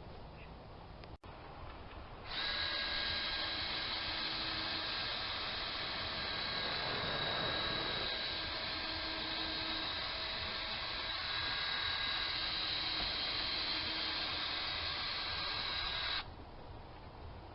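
Power drill running at a steady speed with a high whine for about fourteen seconds, starting a couple of seconds in and cutting off sharply near the end.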